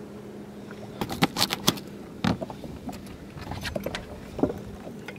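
Fishing rod and tackle being handled aboard a boat: a quick run of sharp clicks and knocks about a second in, then a few lighter ones, over a steady low hum.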